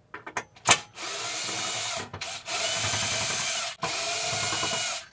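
Cordless drill-driver backing out three screws from a metal ECU cover: a few clicks, then three runs of steady motor whirr of about a second each, with short pauses between them.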